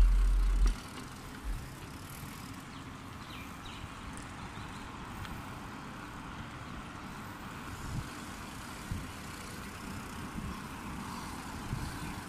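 Steady outdoor rolling noise from riding a mountain bike along a paved sidewalk beside road traffic, with wind buffeting the microphone for the first second or so and a few soft bumps later on.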